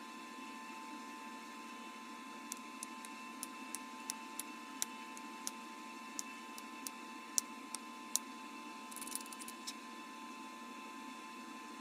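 Glass from a bottle being knapped, most likely by pressure flaking: sharp, irregular little clicks as flakes snap off, about fifteen over several seconds with a quick flurry near the end, over a steady background hum.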